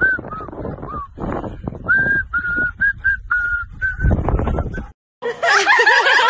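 A dog's squeaky toy squeaking again and again in a husky's jaws as it runs, a run of short high squeaks with gusts of wind on the microphone. About five seconds in this cuts out and gives way to a louder jumble of wavering high voices.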